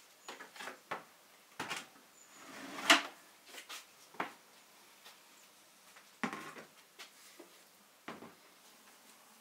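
Plastic bowls and a cupboard handled: a series of separate knocks and clacks as the bowls are taken out of the cupboard and set down on the table, the sharpest about three seconds in.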